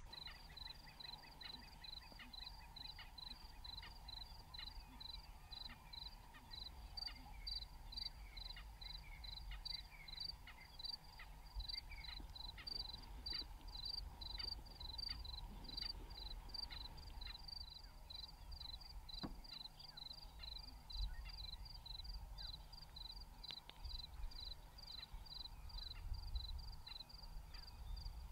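Faint, steady chirping of an insect, a high-pitched chirp repeating about three times a second, over a low background rumble.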